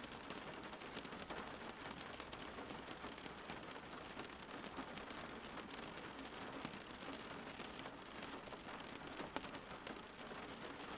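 Steady rain falling and pattering on a surface, with many small drop ticks.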